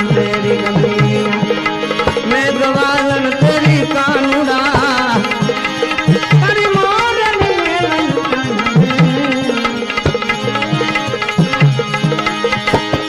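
Bhajan music: tabla keeping a steady rhythm under a wavering melody line.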